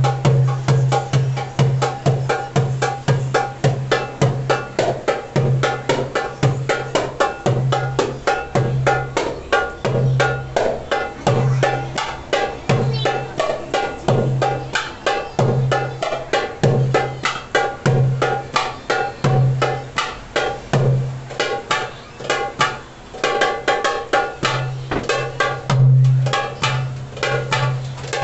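Darbuka (derbak) solo: fast rolls of sharp, high strokes, with deep bass strokes falling roughly every second or so. The bass strokes drop out for a few seconds near the end and then come back.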